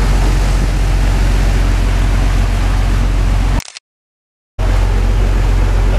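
Passenger ferry's engine droning with a steady low hum, under a loud rushing noise of churning wake water and wind on the open stern deck. The sound cuts out completely for about a second just past halfway, then comes back unchanged.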